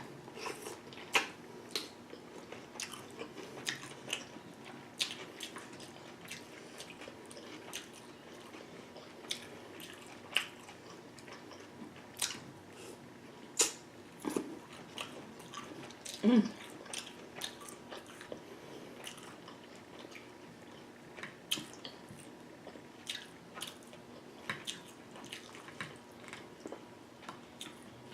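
Close-miked wet chewing and lip smacking while eating a saucy seafood boil, with many scattered sharp clicks and smacks. A brief low vocal sound comes about 16 seconds in.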